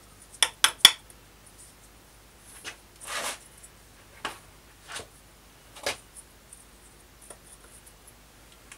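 Handling of a small nylon workpiece and its loose plastic chips: three sharp clicks close together about half a second in, then a short rustle and a few scattered taps.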